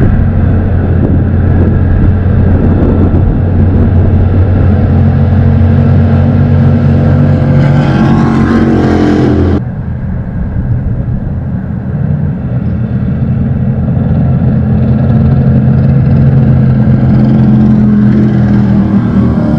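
Racing jet boat engines running loud and steady. About eight seconds in, a rising whine climbs and then cuts off sharply, and the engine sound swells again near the end as boats approach.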